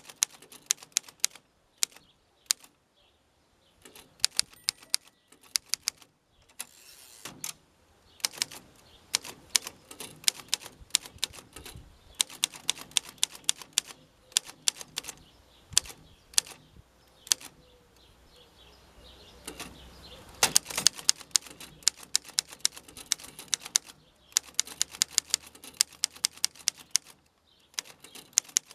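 Keys of a 1920 Underwood Standard No. 5 manual typewriter being typed: quick runs of sharp typebar strikes, broken every few seconds by short pauses.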